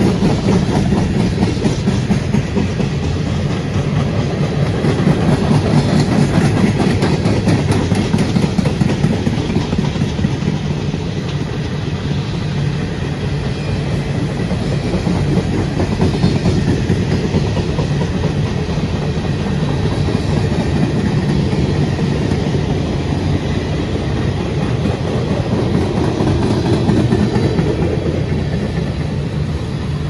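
Freight train cars rolling past close by: a steady rumble of steel wheels on rail with rapid clickety-clack.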